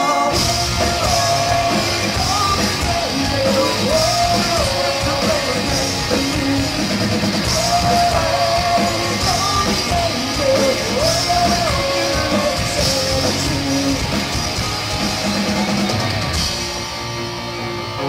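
Live rock band playing loud, with a singer yelling and singing over electric guitar, bass guitar and drum kit. Near the end the drums and cymbals drop out, leaving the guitar ringing on.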